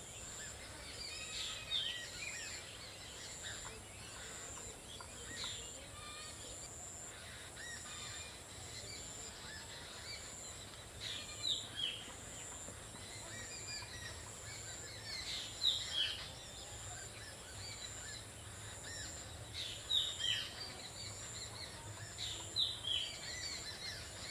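Outdoor birdsong: many small birds chirping in short, falling notes, scattered throughout with a few louder bursts, over a faint steady high hiss.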